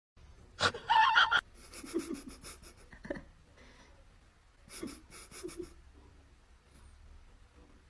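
An animal breathing hard in short bursts of panting, loudest about a second in.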